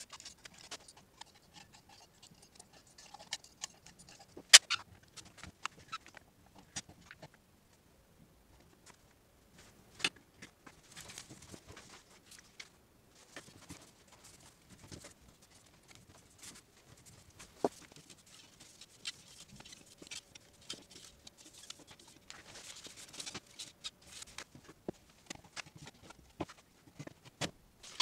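Workbench handling noise while a vintage amplifier is put back together: scattered small clicks and knocks of screws and parts against the metal chassis and wooden case, the sharpest about four and a half seconds in. Two stretches of soft rubbing, a cloth wiping the metal chassis.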